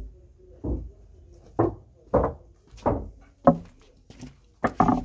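A series of dull thumps or knocks, about nine in all, irregularly spaced roughly half a second to a second apart, with three in quick succession near the end.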